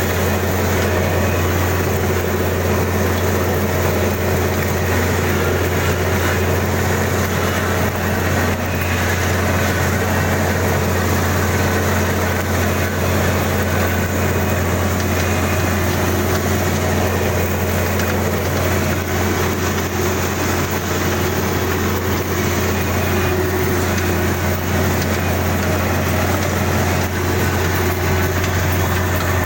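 Kubota DC-35 combine harvester's diesel engine running steadily, a constant low hum that holds the same pitch and level throughout.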